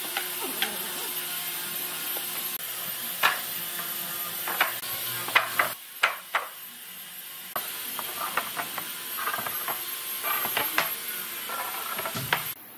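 Wooden boards set down on steel pipe clamps and knocked against one another: a series of sharp wooden knocks and clicks, loudest in the middle, over a steady hiss.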